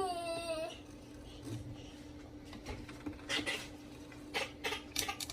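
Short clicks and scrapes of kitchen work on a ribbonfish, in clusters about three seconds in and near the end, over a steady hum. A brief high-pitched child's voice at the very start.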